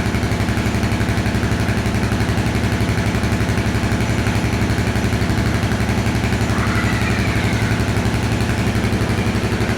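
Motorcycle engine idling steadily through a Leo Vince GP Corsa carbon slip-on exhaust with the baffle (dB killer) fitted, an even, loud exhaust pulse with no revving.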